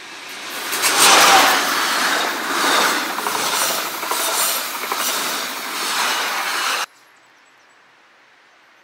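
SBB Re 4/4 II electric locomotive and its passenger coaches passing close at speed: the rush builds to a peak as the locomotive goes by, then the coaches roll past with a rhythmic clatter of wheels over the rail joints, about two beats a second. The sound cuts off suddenly about seven seconds in, leaving a faint quiet background.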